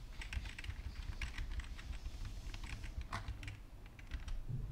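Computer keyboard keystrokes: irregular typing clicks while text is being edited, over a low steady hum.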